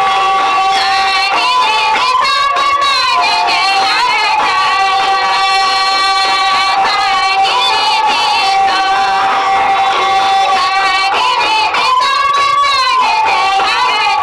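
Music from a Santali song: a melodic line with wavering held notes over a steady sustained accompaniment.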